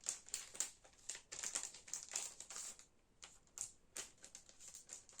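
Album paper and sticker sheets being handled up close: crinkling and rustling with a run of light, irregular clicks and taps.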